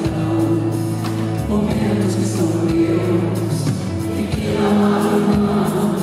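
A woman singing a ballad live with nylon-string electro-acoustic guitar accompaniment, at a steady level with sustained notes.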